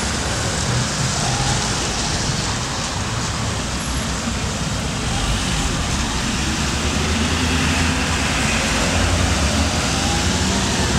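Street traffic: cars and a pickup truck driving past close by, a steady rumble of engines and tyres on the road.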